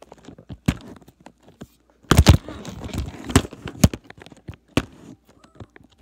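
Handling noise from a tablet being moved and propped up while it records: a string of knocks and clicks, with a louder stretch of rubbing and bumping from about two seconds in.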